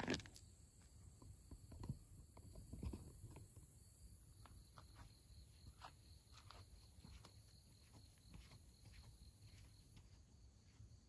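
A plate of cat food set down on concrete with a couple of sharp clicks at the very start, then faint scattered ticks over a steady, faint, high insect drone of a summer night.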